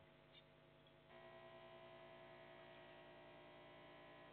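Near silence: a steady electrical hum, a little louder from about a second in.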